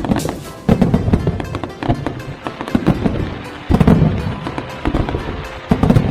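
Aerial fireworks display: heavy booms of shells bursting, about 0.7 s in, near 4 s and near 6 s, with a dense run of crackling between them.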